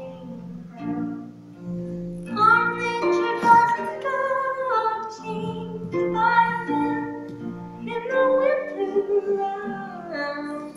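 A song playing: a woman singing a slow melody with long held notes over plucked-string accompaniment.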